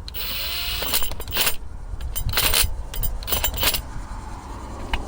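A 3/8-inch impact wrench on its lowest power setting, run in several short bursts to tighten the 10 mm clamp bolts of a brake-line flare tool.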